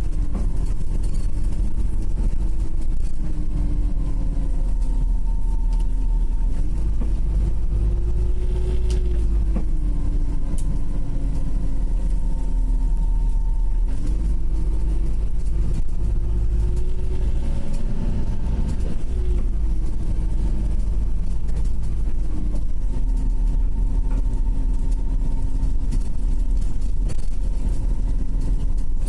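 Inside a Wright Gemini 2 hybrid bus: a low drivetrain rumble, with a thin whine that twice rises in pitch and then sinks back as the bus speeds up and slows down. This whine is the weird noise that the uploader cannot identify.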